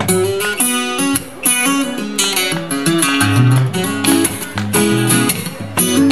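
Acoustic guitar played solo without vocals: strummed chords over a moving bass line of picked notes.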